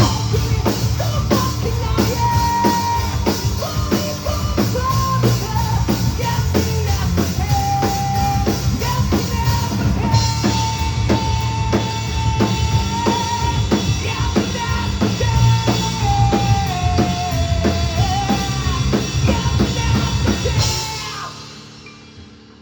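Live rock band playing loudly, with drum kit and a long held high note over the top. The band stops about 21 seconds in, leaving a quieter ring-out.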